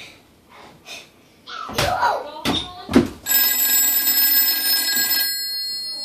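Signal Corps TP-6-A rotary phone's mechanical bell ringing on an incoming call. A few loud clunks come first, then about two seconds of steady bell ringing that stops and slowly dies away.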